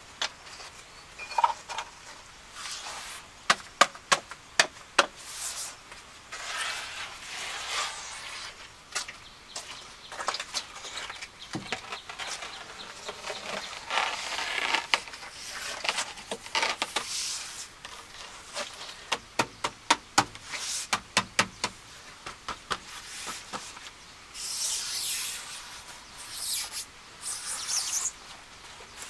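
Hand building work with tools: quick runs of sharp taps and clicks, alternating with stretches of scraping.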